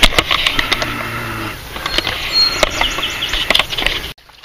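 Birds chirping and insects buzzing, mixed with many sharp clicks and knocks; it all cuts off suddenly near the end.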